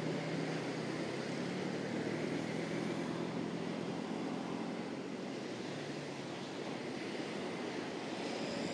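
A low engine hum that fades away over the first three seconds or so, over a steady rushing outdoor noise of wind and surf.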